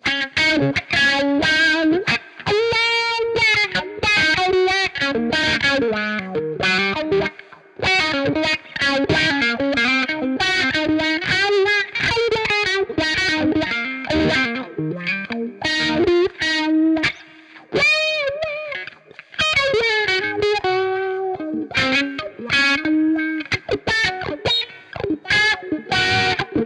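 Fender Stratocaster electric guitar played through a tube amp and the Universal Audio OX Amp Top Box's miked-cabinet simulation: a distorted lead of fast runs, string bends and vibrato, with a few brief pauses between phrases.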